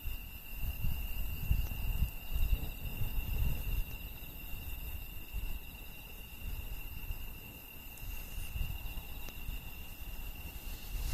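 Insects trilling steadily at a high pitch over a low, uneven rumble, with a few faint crackles from a wood campfire.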